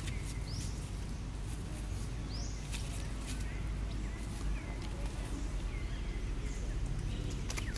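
Outdoor ambience: a steady low rumble with a few short, high chirps scattered through it, and a brief rustle or click near the end.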